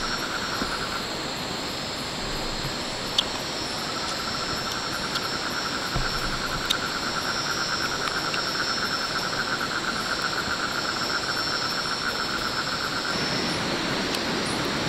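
Forest insects trilling over a steady rush of noise like running stream water. A fast pulsing trill drops out about a second in and resumes about four seconds in, stopping near the end, with a higher, steadier insect tone above it. Two sharp clicks stand out.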